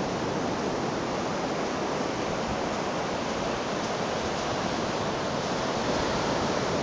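Ocean surf breaking on a sand beach: a constant, even rushing wash of waves.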